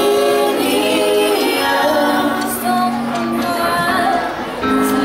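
Live amplified band performance: a group of female singers singing long held notes over keyboard, guitar and drums.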